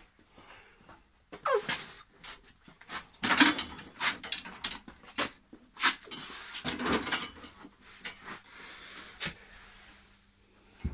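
A heavy wooden log round being carried in and walked on its edge across a workshop floor: irregular knocks, thuds and scrapes of wood, with grunts and hard breathing from the effort of moving it.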